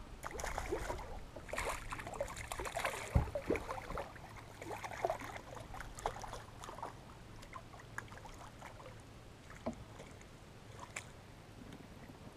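Water splashing and sloshing as a hooked crappie thrashes at the surface and a landing net is pushed through the water beside the boat, heaviest in the first few seconds, with one sharp knock about three seconds in, then lighter splashes and clicks.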